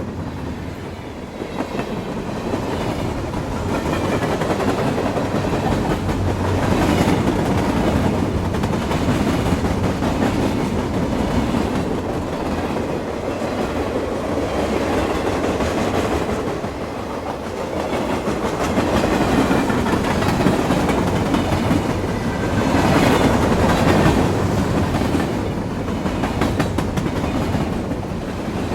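Train running along the tracks, its wheels clacking over the rail joints under a continuous rumble that swells louder and eases off in slow waves.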